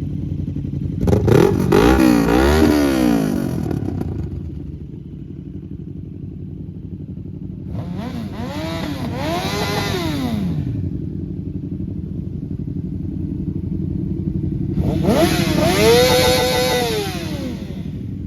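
Motorcycle engine idling, revved by throttle blips in three bursts, each a few quick rises and falls in pitch, before settling back to idle.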